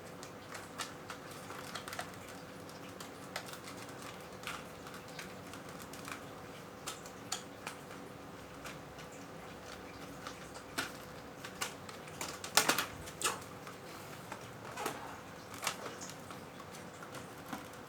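Irregular light clicks and taps of computer parts and their plastic packaging being handled, with a cluster of louder clicks about two-thirds of the way through, over a faint steady hum.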